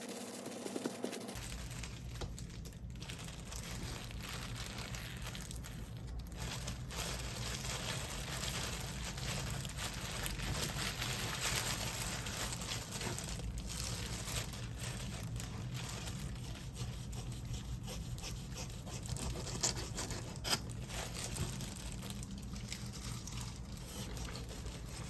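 Kitchen food-preparation sounds: steady rustling and rubbing, with a few light knocks.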